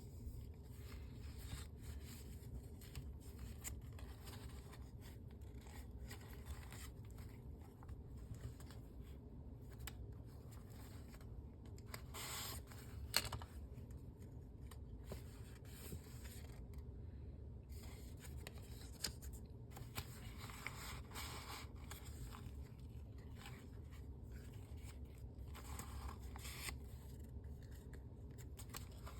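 Paper pages of a handmade paper-bag journal being handled and turned: faint rustling, scraping and small clicks, with a few louder rustles, the loudest about 13 seconds in.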